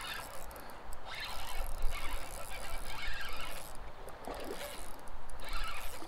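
Shimano Stradic spinning reel being cranked in short spells while a hooked smallmouth bass is fought on light line.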